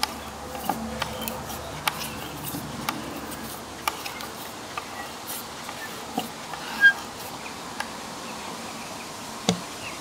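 Ruike LD43 multitool's screwdriver bit turning a wood screw out of a weathered wooden board: irregular small clicks and creaks as the bit works in the screw head, a few of them louder.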